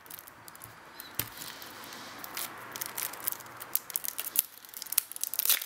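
Fingernails scratching and picking at the plastic shrink-wrap on a CD jewel case to tear it open without a knife. A soft scratchy rubbing in the first half gives way to a run of small plastic clicks and crackles.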